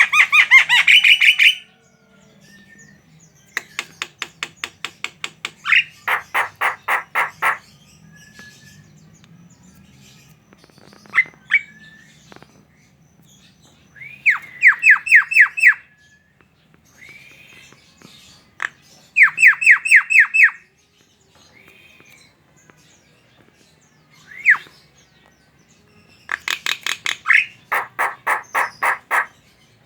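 Javan myna chattering: bursts of rapid, repeated harsh notes, several a second, broken by pauses of one to a few seconds.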